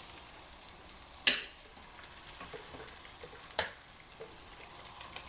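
Eggs and ground spice paste frying in hot oil in a pan, with a steady sizzle. Two sharp clicks cut through it, about a second in and again past three and a half seconds.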